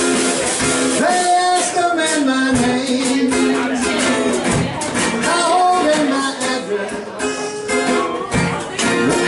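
Live band music: an amplified acoustic guitar played over a drum kit.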